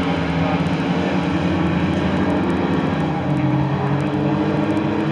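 Several saloon stock car engines running hard together. Their overlapping engine notes rise and fall as the cars lap the track, and one note dips about three seconds in before climbing again.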